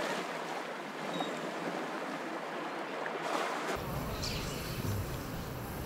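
Steady hiss of surf and wind at a beach, with a low rumble joining a little under four seconds in.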